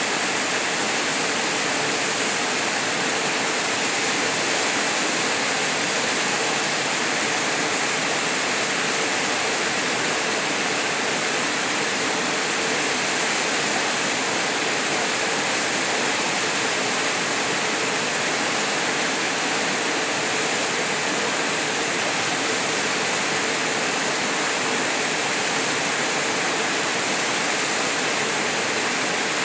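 Waterfall pouring into a rocky plunge pool: a steady rush of falling water that does not change.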